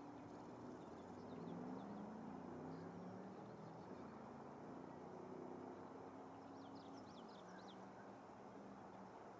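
Faint small-bird chirps: a few scattered notes, then a quick run of chirps about seven seconds in. Underneath is a low hum that shifts in pitch, over a steady hiss.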